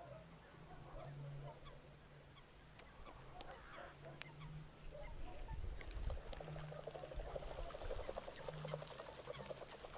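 Faint calls of distant waterfowl, ducks and geese, carrying across open water; the calling gets busier and a little louder about halfway through.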